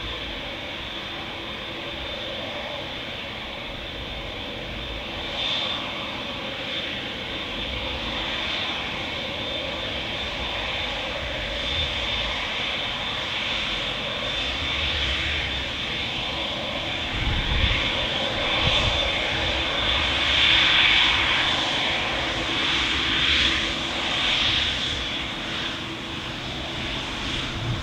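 Boeing 787 Dreamliner's GE turbofans at taxi power: a steady jet roar with a high whine, swelling louder and more uneven past the middle as the airliner comes close.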